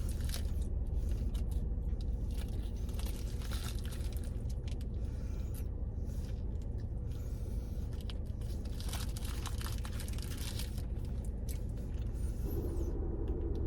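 Close-miked eating: biting into and chewing a mushroom and Swiss burger, with scattered small crunches and paper crinkles, over a steady low hum.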